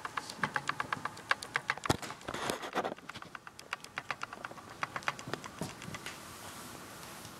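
Kittens' claws and paws clicking and pattering on a hardwood floor as they chase a ribbon toy: quick runs of light clicks, about five or six a second, broken about two seconds in by a sharper knock and a brief scuffle, then thinning out near the end.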